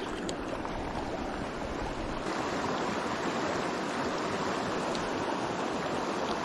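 River current rushing over a rocky streambed: a steady, even water noise that grows a little louder about two seconds in.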